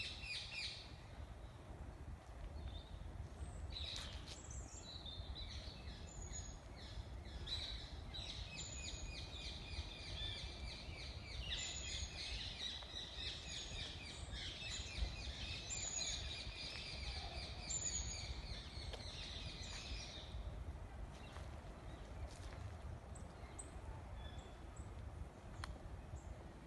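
Songbirds singing, a busy run of repeated chirps and trills that starts about three seconds in and stops about twenty seconds in, over a steady low rumble.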